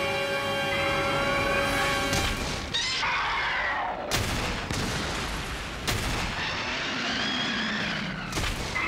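Kaiju sound effects over background music: a sustained electronic tone for about the first two seconds, then Red King's wavering roars and three sharp booms.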